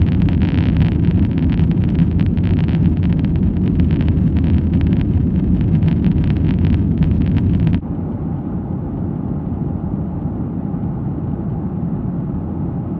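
Steady cabin roar of a Boeing 737's jet engines and airflow during the climb after takeoff. About eight seconds in, the sound drops suddenly to a somewhat quieter, duller roar.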